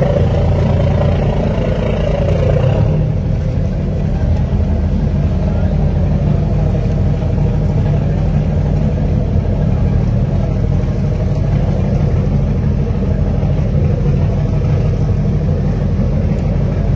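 Marine diesel engines running with a steady low drone while a crew boat holds alongside a ship.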